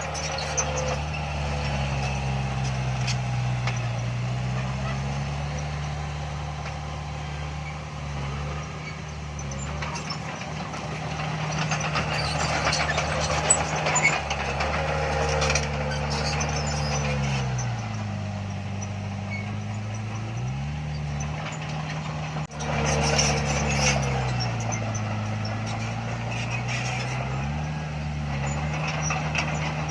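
Heavy diesel engine of a bulldozer working under load, its engine speed sagging and recovering several times, with scattered clanks.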